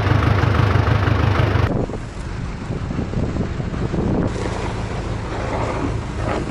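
Case backhoe loader's diesel engine running loudly close by. About two seconds in, the sound changes suddenly to a quieter mix of engine sound and wind on the microphone.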